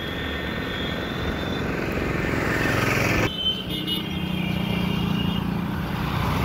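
Heavy Ashok Leyland dump truck's diesel engine idling steadily, growing louder as it nears until an abrupt change about three seconds in, after which a lower, even hum carries on.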